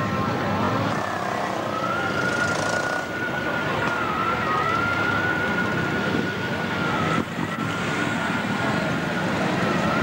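Paramotor engine droning overhead: a steady high whine that wavers slightly about four seconds in and breaks off a little after seven seconds, over a constant rushing noise.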